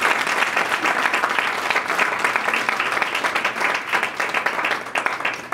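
A small group applauding: a dense patter of hand claps that dies away near the end.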